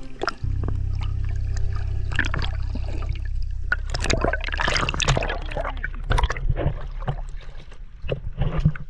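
Underwater sound picked up by a submerged camera: a steady low rumble with bubbling, gurgling and crackling water, the bubbles heaviest around the middle and again near the end.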